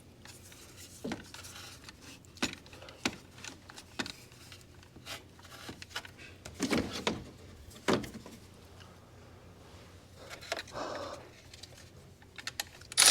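Hand tools and metal parts clinking and knocking now and then during work on a car's air-conditioning compressor, with two louder knocks about seven and eight seconds in and a short scraping rustle near the end.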